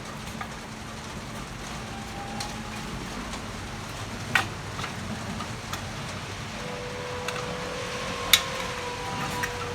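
A few sharp metallic clicks as the patio heater's cover and its fixings are handled, the clearest about four seconds in and again near the end, over a steady background hiss.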